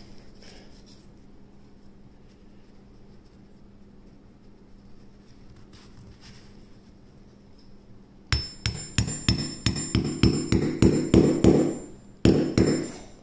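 Small wooden-handled hammer tapping a pin into the steel bolt of a Grand Power Stribog SP9 A3: a quick run of light metallic taps, about four a second with a faint ring, starting about two-thirds of the way in. After a short pause come two more taps near the end.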